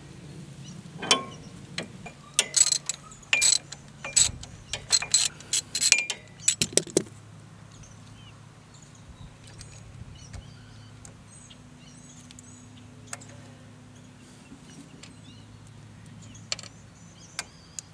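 Irregular metallic clicks and clinks of hand tools working on the battery cable terminal while it is unbolted, clustered in the first seven seconds. After that only a faint steady low hum remains.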